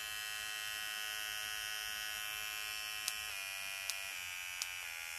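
Dermapen Pro electric microneedling pen's motor running with a steady high-pitched buzz. Near the end there are three sharp clicks, and the buzz drops in pitch in two steps.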